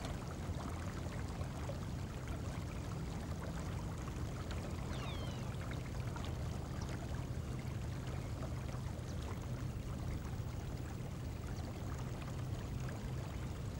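River water flowing steadily, with a low, even rumble underneath.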